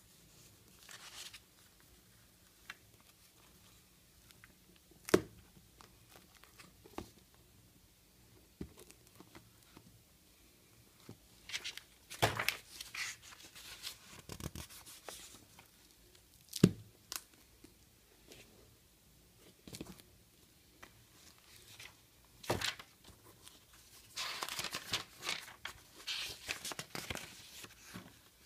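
Pages of an old paper book being turned and handled by hand: scattered paper rustling and crinkling, with a few sharp knocks, the loudest about five seconds in and again near seventeen seconds.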